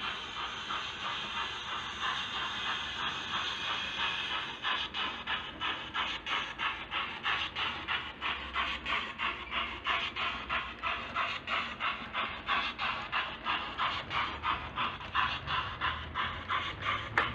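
Sound decoder of a Bachmann OO-scale LMS Jinty (Class 3F) model steam locomotive, playing a Digitrains steam sound file through the model's speaker: a steady steam hiss, then from about five seconds in regular exhaust chuffs at about four a second as the engine runs. A low rumble of the wagons on the track joins near the end.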